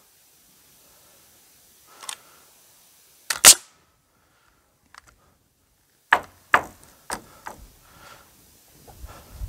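Pneumatic framing nailer firing nails into a wooden furring strip on roof rafters: single sharp shots, the loudest about three and a half seconds in, then four in quick succession between about six and seven and a half seconds in.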